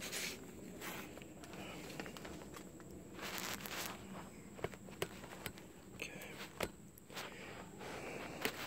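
Faint handling noise and movement: scattered clicks, knocks and shuffling footsteps while the camera is being positioned and fixed in place.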